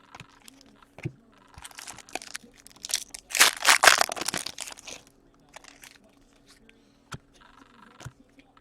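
Plastic trading-card pack wrapper being crinkled and torn open, loudest in the middle, followed by a few light taps as the cards are handled.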